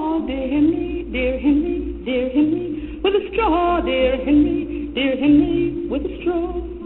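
Music with singing: a voice gliding up and down in pitch over an accompaniment.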